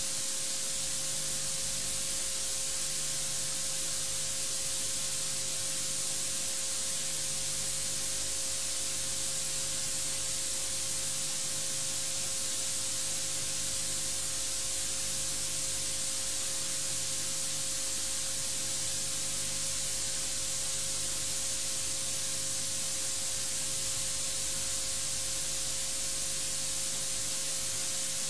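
Steady electronic hiss of static from an audio feed, with a faint steady hum tone underneath.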